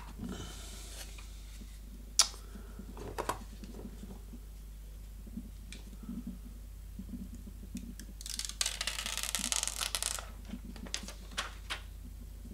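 Xiaomi Redmi smartphones handled on a desk: a sharp click about two seconds in, a couple of knocks, then a couple of seconds of noisy rubbing and a few light taps near the end, over a steady low hum.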